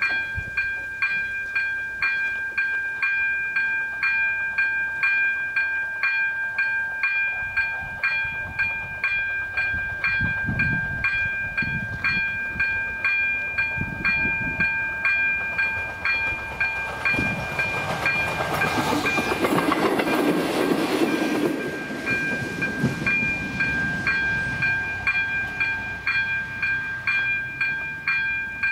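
The AŽD 97 level-crossing signal's electronic warning bell ringing steadily, about two to three dings a second. Partway through, a passing train's rumble rises over it, peaks and fades within a few seconds.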